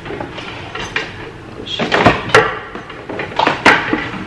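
A handful of sharp knocks and clacks of household items being handled and put away during tidying, the loudest in the second half.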